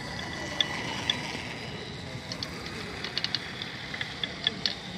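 Radio-controlled monster truck driving on wet asphalt: a steady motor and drivetrain whine with tyre noise, with scattered short high ticks in the second half.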